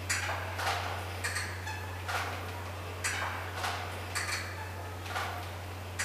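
A large swinging church bell and its steel bell frame in the belfry of Trier Cathedral clicking and knocking in time with the swing, about every two-thirds of a second, each knock with a light metallic ring, over a steady low hum.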